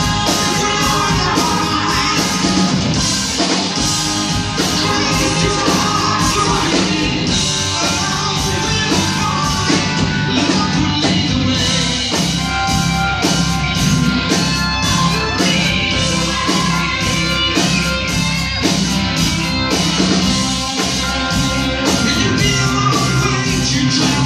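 Live rock band playing a song: electric guitars, drums and keyboards with singing, loud and steady throughout.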